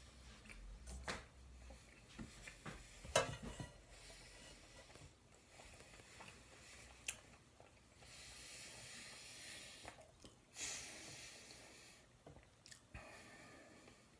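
Quiet chewing of a small piece of cake, with breathing through the nose and a few faint clicks and knocks.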